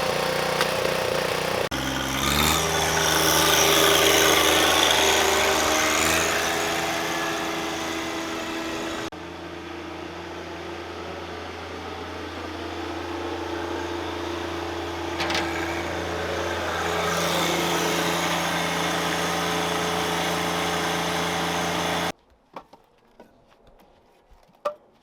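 Small gas engine of a log splitter running steadily, its note shifting as it takes load, with a sharp crack or two. It cuts off suddenly to near silence near the end.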